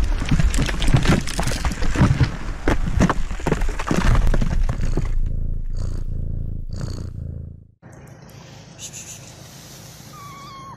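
Animated logo-intro sound effect: a rapid, irregular run of cracking, crumbling impacts over a low rumble, then a steadier low hum with two shimmering whooshes. It cuts off abruptly about eight seconds in, leaving faint steady background noise with a brief whistle-like tone near the end.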